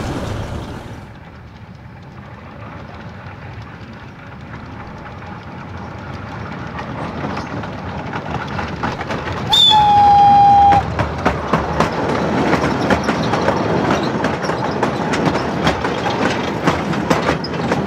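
A narrow-gauge (600 mm) quarry train approaching and growing louder. About ten seconds in, the locomotive gives one loud whistle blast lasting just over a second. Its wheels then clatter rapidly over the rail joints as it passes close by.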